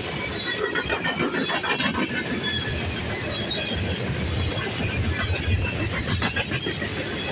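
Freight cars of a passing freight train rolling by close up: a steady rumble of steel wheels on the rails, with clanks as the wheels cross the rail joints.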